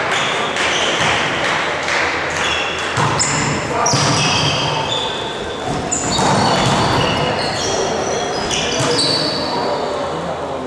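Volleyball game in a large sports hall: players' voices and calls, ball hits, and many short high-pitched sneaker squeaks on the court floor.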